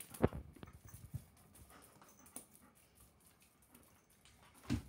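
German Shepherd lunging and snapping at a cat teaser wand: a few sharp knocks, the loudest about a quarter second in, then quiet, and a pair of thumps near the end.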